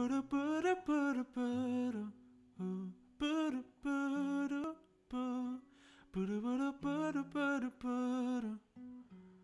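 A man humming a wordless melody in short phrases over fingerpicked notes on a nylon-string classical guitar.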